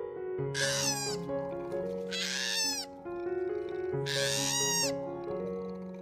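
An animal calling three times over background music, each call a short, harsh cry whose pitch falls, spaced a little under two seconds apart.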